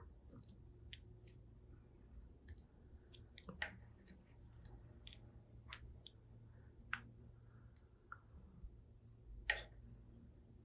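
Faint, scattered clicks from a Russian Blue cat biting and batting at a pencil, the loudest about three and a half seconds in and again near the end.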